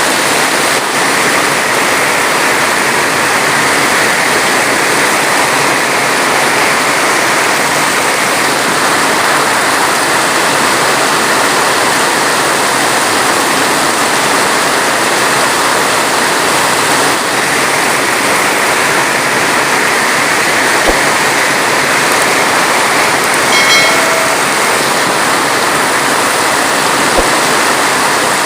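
Heavy rain falling steadily, an even dense hiss with no thunder. A brief pitched note sounds about three quarters of the way through.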